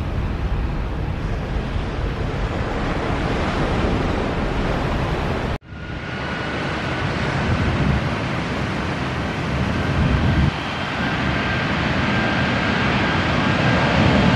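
Jet airliner engines running near a runway: a steady rushing noise with wind buffeting the microphone. It breaks off abruptly about five and a half seconds in and resumes with a faint high whine over a deep rumble that builds toward the end.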